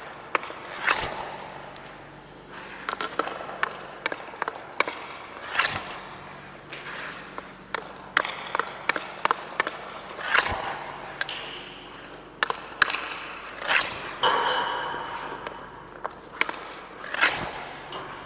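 Ice hockey shots from a composite pro-stock hockey stick: the blade cracks against puck after puck, about every two to three seconds. Between shots come smaller clicks of the blade gathering pucks, scraping on the ice, and knocks of pucks striking the boards or net, all echoing in the rink.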